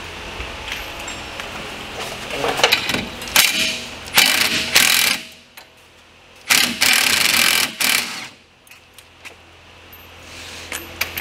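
Cordless impact wrench rattling in short bursts of about a second each, about three times, working the hub and brake bolts off a UTV's front wheel hub.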